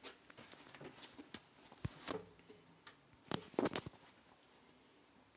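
Handling noise from a phone held in the hand as it is carried: scattered clicks, rubs and knocks, loudest about two seconds in and again between three and four seconds.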